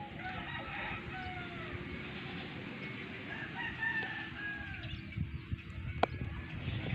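Roosters crowing, a series of drawn-out rising and falling calls, most of them in the first half. A low steady hum runs under the first half, and there is one sharp click about six seconds in.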